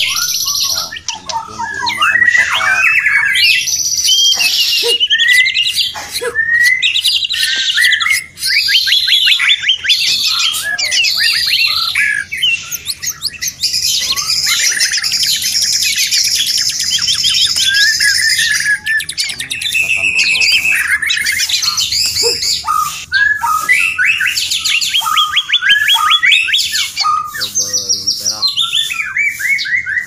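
White-rumped shama (murai batu), a caged songbird, singing without a break: a long, varied run of rapid trills, clear whistles and chattering phrases.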